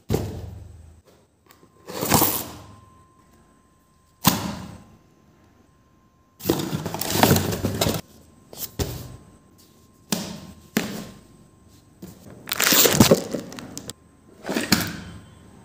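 Cardboard shipping box being opened and handled by hand: a series of short bouts of tape tearing, cardboard scraping and packaging crackling, with quiet gaps between them.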